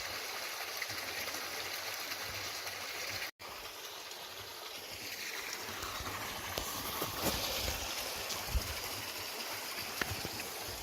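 River water flowing over rocks, a steady rushing, with a brief dropout to silence about three seconds in.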